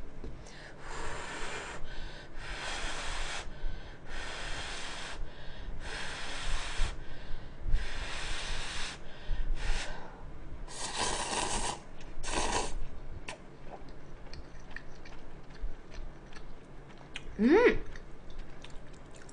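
Instant udon noodles slurped up with chopsticks, about eight hissing slurps in the first two-thirds. Softer mouth sounds follow, then a short rising hum near the end.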